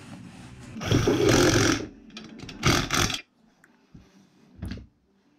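A hand-held power tool runs in short bursts, one longer burst about a second in and then two quick ones, driving bolts into a GY6-type 50cc scooter engine's cylinder head. A couple of light clicks of metal parts follow.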